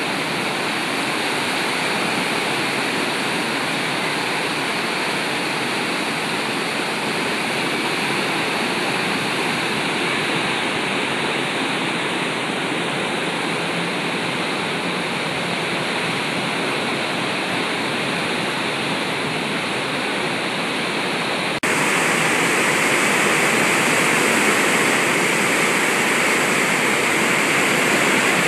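Clark Fork River in spring flood, its fast, churning water rushing steadily past concrete bridge piers. About three quarters of the way through, the sound cuts abruptly to a louder, closer rush of foaming whitewater.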